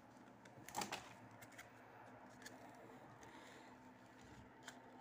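Near silence, with the faint rustle and ticks of football trading cards being handled; one short, louder rustle comes just under a second in.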